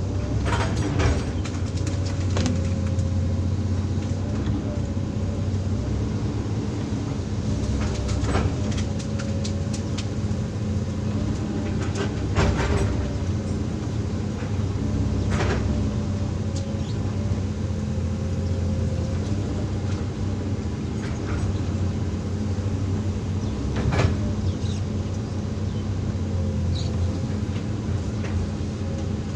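Hydraulic excavator's diesel engine running steadily under load, with a higher wavering whine over it and about five sharp knocks scattered through the working cycle.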